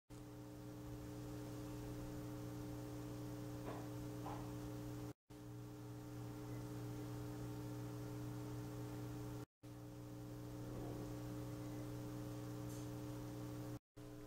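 Faint steady electrical hum made of several held pitches, like a recording's noise floor. It cuts out to dead silence briefly three times: about five, nine and a half, and fourteen seconds in.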